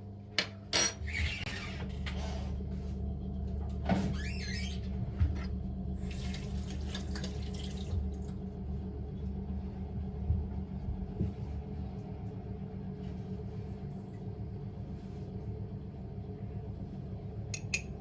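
Household kitchen sounds over a steady low hum: a few sharp clicks and knocks, and two short rushes of hiss that sound like water running from a tap, the longer one about six seconds in.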